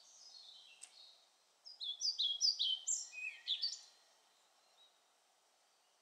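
Male European pied flycatcher singing: a faint phrase trailing off in the first second, then a loud song strophe of about two seconds made of quick repeated high notes that step down in pitch, ending about four seconds in. A brief sharp click just under a second in.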